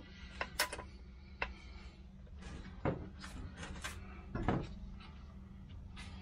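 Scattered clicks and knocks of hands and tools working at a heavy truck's flywheel, the strongest about three and four and a half seconds in, over a steady low hum.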